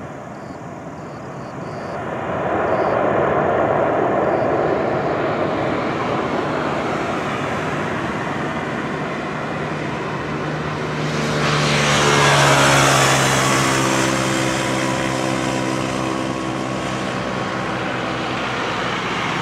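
Airbus A320-200 jet engines during the landing rollout: a loud, rough roar that swells about two seconds in. It swells again around the middle with whining tones that slowly drop in pitch, then eases off.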